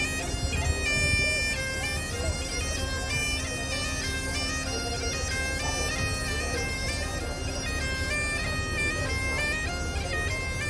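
Pipe band bagpipes playing a tune: the melody steps from note to note over a steady, unbroken drone.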